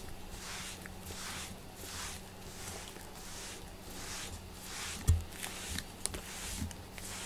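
Rubber grooming glove stroking a cat's fur, a soft rhythmic swishing at about two strokes a second. A single dull thump about five seconds in.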